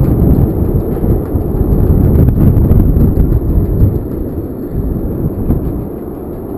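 Storm wind blowing hard on the microphone, a dense, low, gusting roar with no pitch to it, muffled by the camera's cover. It eases a little after about four seconds.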